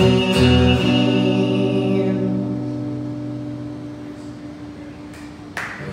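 Acoustic guitar's final chord of a song ringing out and slowly fading away. Clapping starts just at the end.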